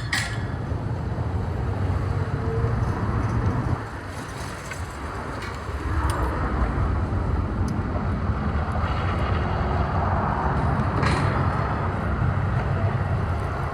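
Steady low rumble of road traffic, dropping off a little about four seconds in and swelling again about two seconds later.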